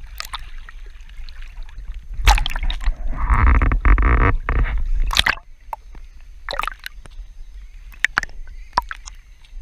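Water sloshing and gurgling, much louder for a few seconds in the middle, with scattered sharp knocks and clicks and a low rumble underneath.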